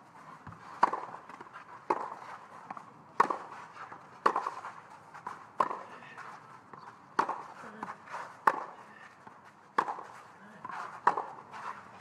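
Tennis ball struck back and forth with racquets in a rally on a clay court: a string of sharp hits coming about every second and a half, with softer scuffs between them.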